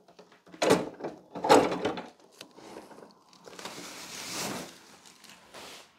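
A large flat-screen TV in cardboard and plastic wrapping being lifted and hung on metal wall brackets: two knocks about a second apart near the start, a few lighter knocks, then a longer scraping rustle of the packaging against the wall.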